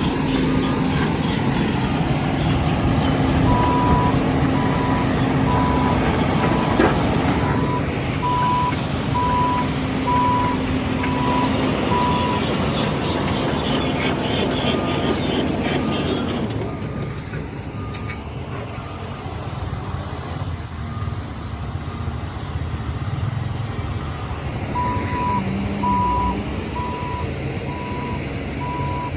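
Diesel engines of heavy earthmoving machines (wheel loader, bulldozer, motor grader) running under load, with a reversing alarm beeping about one and a half times a second. A second, fainter backup alarm sounds between the two runs of beeps. The engine noise drops about halfway through.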